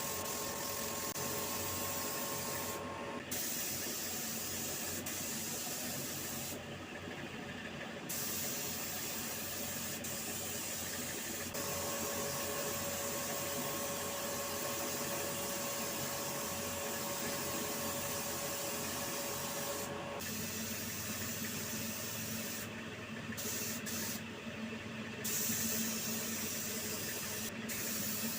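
Spray gun hissing in long passes, stopping briefly several times, over a faint steady machine hum.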